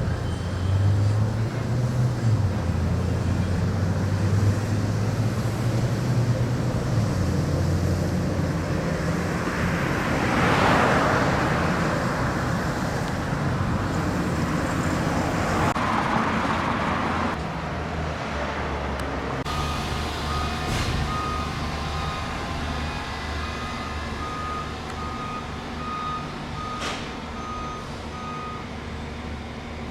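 Heavy vehicles and machinery running at a construction site, with a low engine hum and vehicles passing. About two-thirds of the way in, a vehicle's reversing alarm starts up, a steady string of evenly spaced beeps.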